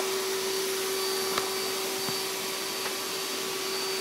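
An electric motor running steadily, with a constant hum and hiss. A couple of faint taps come about a second and a half and two seconds in.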